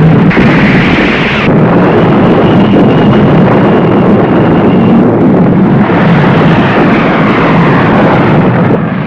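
Loud, continuous roar of aircraft engines with a faint steady whine above it, changing in texture a few times.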